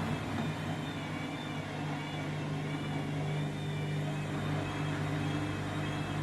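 Candy washing machine running an intermediate spin with an overloaded, unbalanced load of whites: a steady motor hum with a higher whine that wavers gently up and down in pitch.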